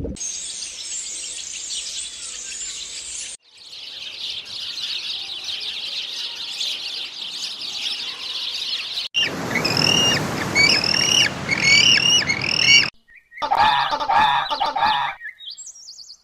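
A run of separate bird clips. First comes dense chirping of many birds, then a steady chatter of a flock, then one bird giving a repeated hooked call about twice a second, and last a short, lower call.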